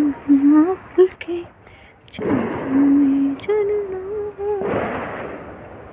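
A tune hummed in short held notes that step up and down in pitch, broken about two seconds in and again near the end by loud rushes of noise.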